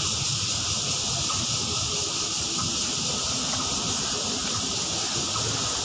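Steady chorus of cicadas in the forest canopy, an unbroken high-pitched hiss.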